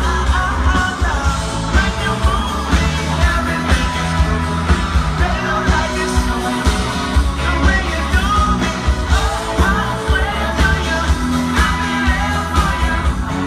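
Live pop-rock band playing with singing over a steady beat.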